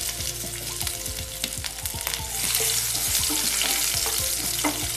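Curry leaves sizzling and crackling in hot oil with mustard seeds in a frying pan. The sizzle grows louder about two seconds in.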